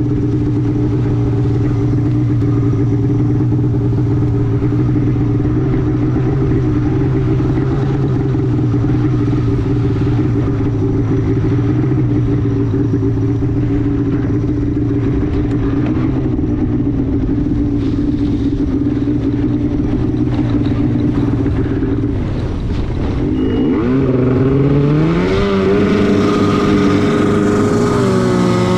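Arctic Cat snowmobile engine running steadily under the rider, then revving up with a rising pitch about three-quarters of the way through. It holds high and drops off right at the end.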